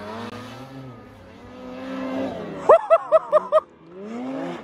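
Snowmobile engine revving hard in deep powder, its pitch rising and falling with the throttle; about halfway through comes a quick run of five short, loud, high-pitched blips, then the engine climbs in pitch again.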